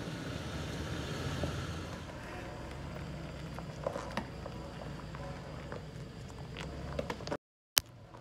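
An SUV engine running low and steady as the vehicle creeps over the rocky trail, with a few sharp crunches and clicks of rock. The sound cuts out briefly near the end and is followed by a sharp click.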